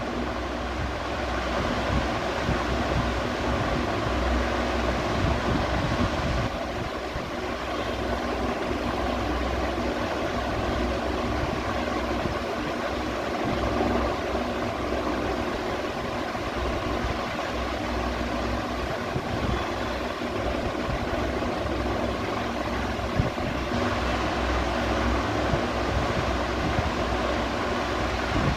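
Ceiling fan running steadily: a constant whirring hum with several steady tones in it, over a fluctuating low rumble of air moving past the microphone.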